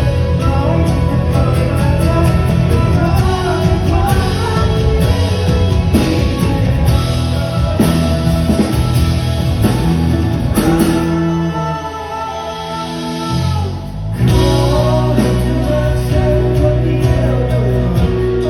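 Live band playing a Thai pop song through a PA, with singing, electric guitar, bass and drums. The bass and drums drop out for about two seconds past the middle, then the full band comes back in.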